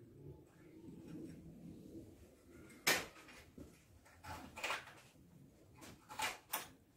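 Small metal tools and workpiece being handled at a bench vise: one sharp metallic knock about three seconds in, then a few shorter scrapes and clicks.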